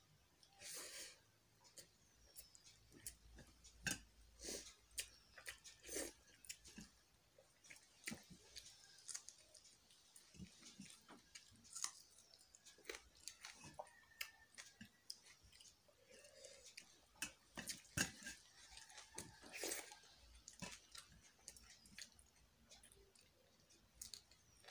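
A person chewing mouthfuls of boiled rice and prawn curry eaten by hand: faint, irregular wet smacks and clicks of the mouth, a few louder than the rest.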